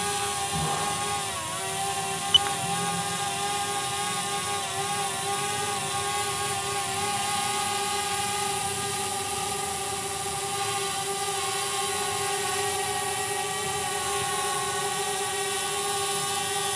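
DJI Spark drone's propellers, aftermarket (KW) ones, whining steadily as it hovers and climbs slowly, the pitch dipping briefly about a second and a half in. A short click about two seconds in.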